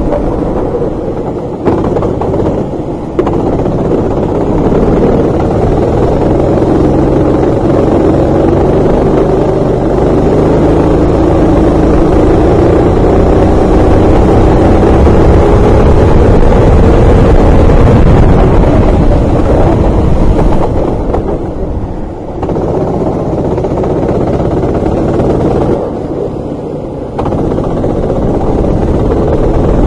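Racing kart engine heard from a camera mounted on the kart, held at full throttle and climbing steadily in pitch along a straight, then dropping off twice briefly near the end as the driver lifts for corners.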